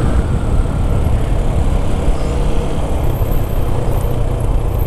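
Motorcycle under way at about 40 km/h: a steady rumble of wind over the microphone with the engine running underneath.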